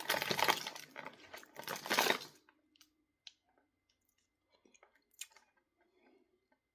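Popcorn being chewed close to the microphone, a loud crunching for about the first two seconds, then only faint scattered crunches and clicks.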